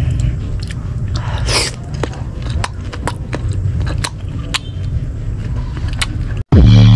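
Crisp bites and chewing of crunchy unripe green mango, a string of short sharp crunches. A loud electronic music intro cuts in just before the end.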